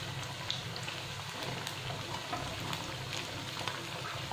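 Sabudana vadas deep-frying in a kadhai of hot oil: a steady sizzle with many small crackles and pops.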